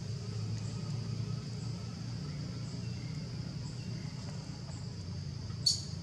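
Outdoor forest ambience: a continuous high insect drone over a steady low hum, with one brief shrill high-pitched sound near the end.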